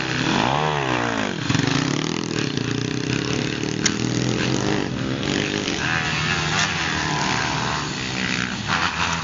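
Small dirt bike engine revving, its pitch sweeping up and down in the first second or so, then running at a steadier pitch.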